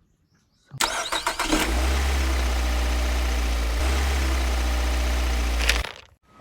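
A vehicle engine starting: a short burst of cranking about a second in, then it catches and runs steadily with a low drone, cutting off abruptly near the end.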